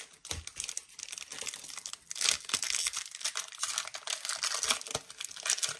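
Foil trading-card booster pack wrapper crinkling and being torn open, in irregular bursts that are loudest about two seconds in.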